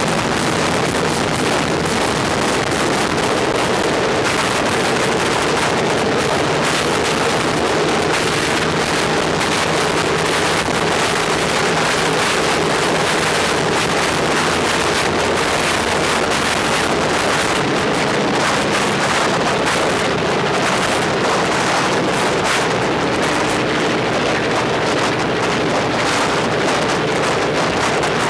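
Ilyushin Il-14T's left Shvetsov ASh-82T fourteen-cylinder radial piston engine running steadily at a constant setting, with propeller wash buffeting the microphone.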